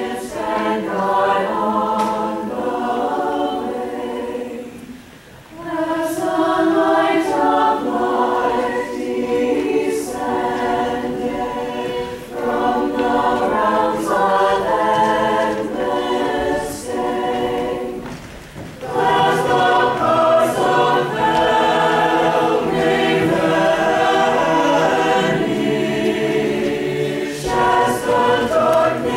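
Mixed choir of men's and women's voices singing together, with brief breaks between phrases about five seconds in and again about two-thirds of the way through.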